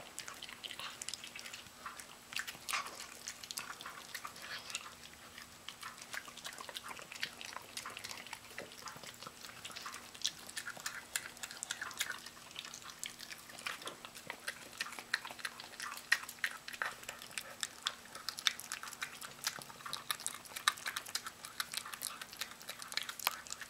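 Miniature pinscher chewing and gnawing a piece of raw chicken, with many irregular sharp clicks and crunches.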